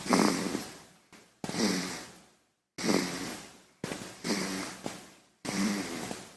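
A baby snoring: five short snoring breaths, about one and a half seconds apart, each starting strong and fading away.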